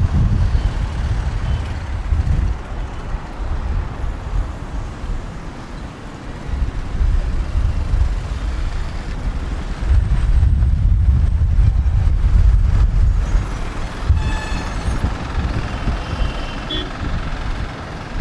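Heavy road traffic heard from a moving bike: a loud, uneven low rumble of engines and tyres that eases off for a few seconds and swells again about ten seconds in. A brief pitched tone cuts through at about fourteen seconds, and a shorter high one a couple of seconds later.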